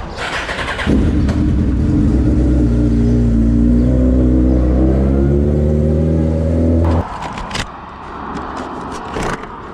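Motorcycle engine pulling away from a standstill: about a second in the engine note jumps up and holds, climbing slowly in pitch as the bike accelerates, then drops off abruptly about seven seconds in, leaving a much quieter engine sound.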